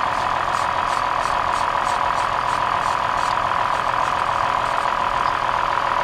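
2003 Toyota Highlander V6 idling steadily with a light, regular ticking, misfiring on one cylinder because of a failed ignition coil.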